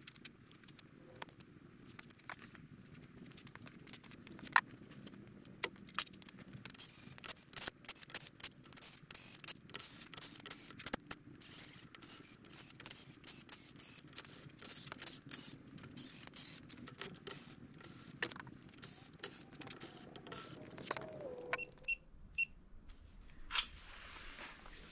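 Light metallic clicks and clinks, thickest in the middle, as new aluminium bolts are set into an engine's bedplate and threaded in.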